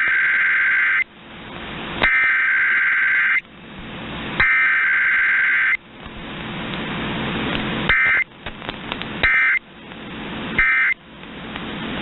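Emergency Alert System SAME data bursts heard over AM radio: three header bursts of two-tone digital data, each about a second and a half long and a second apart, then about two seconds later three short end-of-message bursts, marking a required weekly test with no voice message. Reception hiss swells in the gaps between bursts.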